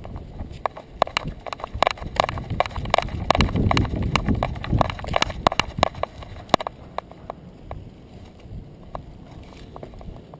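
Quick, irregular clicking and tapping from a small dog walking and trotting on a concrete sidewalk, picked up by a camera strapped to its back. The clicks come thick for the first six seconds or so, over a low rumble, then thin out.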